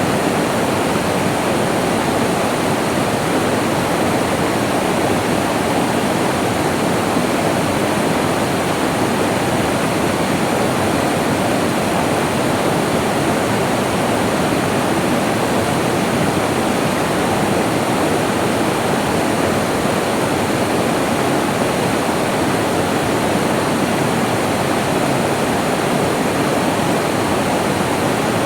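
Flowing water: a steady, unbroken rush of a rainforest stream or small waterfall.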